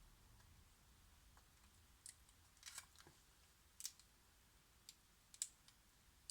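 Faint, sharp little clicks and taps, about six of them scattered through the second half, from small tools and parts being handled on an opened smartphone during repair.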